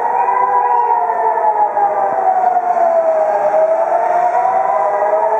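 Civil defense air raid sirens sounding, several sirens at slightly different pitches overlapping into one slowly wavering tone.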